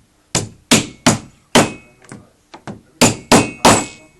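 About ten sharp hammer knocks on a wooden vanity cabinet panel at an uneven pace, some in quick pairs, each with a short ringing tail.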